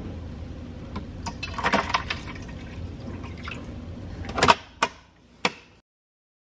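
Light clicks and knocks of things being handled and set down on a kitchen counter over a low steady hum. The sharpest knock comes about four and a half seconds in, with two more after it, and then the sound cuts off suddenly.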